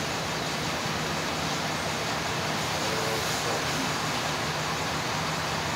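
Steady workshop background noise: an even hiss with a constant low hum, and no distinct knocks or clanks.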